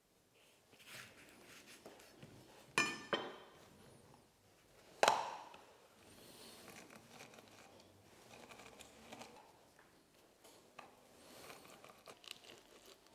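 A knife cuts a lemon on a wooden chopping board. There are sharp knocks about three seconds in and a louder one about five seconds in as the knife and a small citrus juicer are set down on the board. Then lemon halves are twisted on the juicer's ribbed cone, a soft, uneven scraping that goes on to the end.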